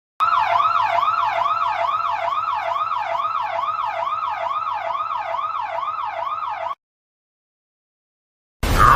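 Electronic emergency-vehicle siren wailing in quick up-and-down sweeps, a little over two a second, then cutting off abruptly about two-thirds of the way in.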